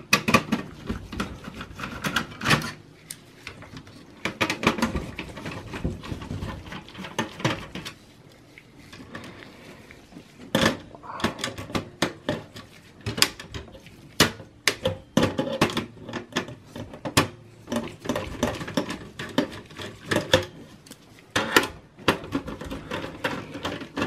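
Phillips screwdriver backing out motherboard screws from a steel computer chassis: irregular metallic clicks, ticks and small knocks of the tip and screws, more frequent and louder in the second half.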